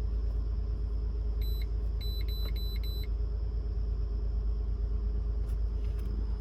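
Honda 3.5L V6 engine idling steadily with a low rumble while it still misfires on cylinder 3, with the check engine light flashing. A handheld OBD2 scan tool gives short high beeps as its buttons are pressed: once about a second and a half in, then four quick beeps between two and three seconds in.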